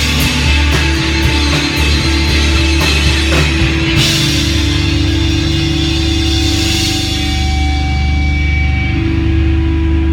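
Rock band on electric bass, two electric guitars and drum kit playing loudly through amplifiers. About four seconds in the drums hit a cymbal crash and stop, and the chord is left ringing and held.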